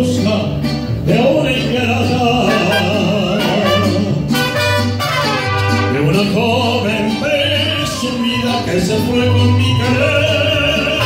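Live mariachi band playing: a singer over trumpets, violins and guitar, with a bass line stepping steadily underneath.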